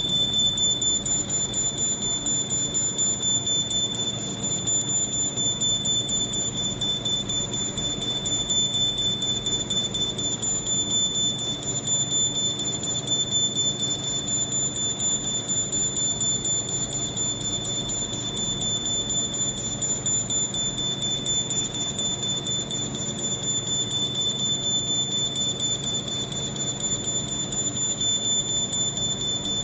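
Laser cutting machine running as it punches holes in paper: a steady high-pitched whine over a lower machine hum, with a fast, even run of ticks, about four a second.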